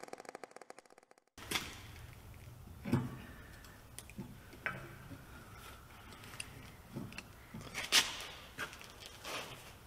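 Scattered sharp knocks and clanks of metal parts and tools being handled, the loudest about eight seconds in, over a low hum. A running machine fades out in the first second.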